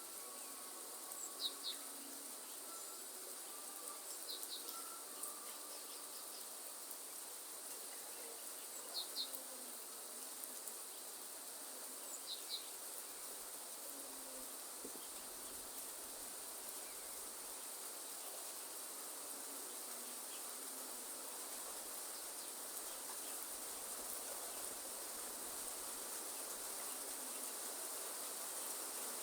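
Rainforest ambience: insects droning steadily over an even hiss, with short double chirps four times in the first dozen seconds. The hiss grows slowly louder toward the end.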